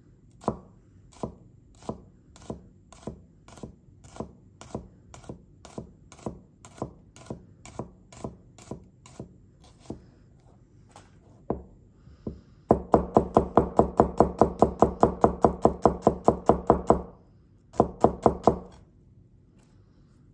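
Sami Yousri honyaki gyuto cutting a red onion on a cutting board: light, even taps of the edge meeting the board about two a second as it slices. After a pause, a louder fast run of chopping at about six strokes a second as the slices are minced, then a brief second run.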